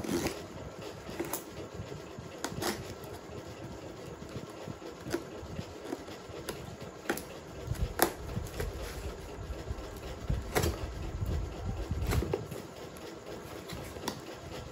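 Packing tape on a cardboard parcel being slit and scraped open with a small hand tool, with scattered sharp clicks and low thumps and rubbing as the box is turned and handled.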